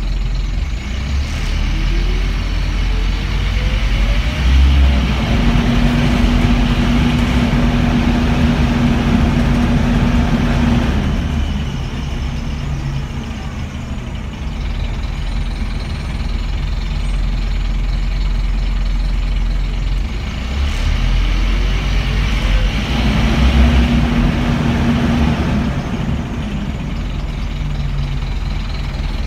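Scania N230UB single-deck bus's engine and driveline running, heard from inside the passenger saloon. The engine note rises twice, with a steady whine, as the bus pulls away and accelerates, and it settles lower in between.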